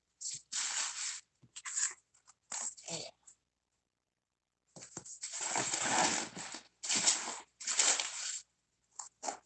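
Plastic packing wrap and cardboard crinkling and rustling as a delivery box is unpacked by hand, in short bursts with a pause about three and a half seconds in, then a longer spell of crinkling around five to six seconds in.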